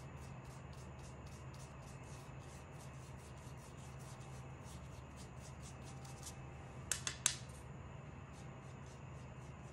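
Paintbrush scrubbing back and forth on watercolour paper in quick, even strokes, about four or five a second. The strokes stop about six seconds in, a quick cluster of three sharp clicks follows, and the strokes resume near the end, over a steady low hum.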